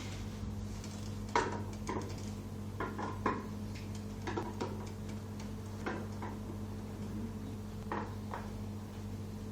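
Small metal clicks and taps, irregular and spaced out, as screws are undone from the metal back cover of a UNO-2173AF fanless computer with a screwdriver, over a steady low hum.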